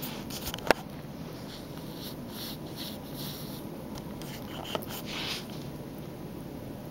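Four-week-old kitten chewing and smacking on chunks of raw steak, with small wet mouth noises scattered through the first five seconds. A sharp click just under a second in, the loudest sound, and a smaller one near five seconds.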